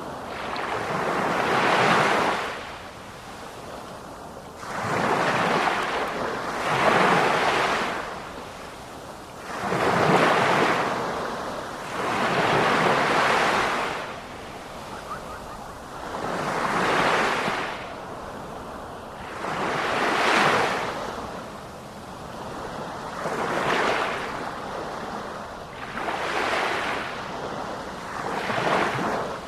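Sea surf: waves breaking and washing in over and over, each surge swelling and falling away, about one every three to four seconds.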